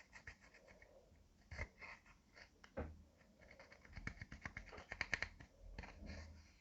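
Slime being squished and worked by hand: a run of small sticky clicks and pops, busiest about four to five and a half seconds in.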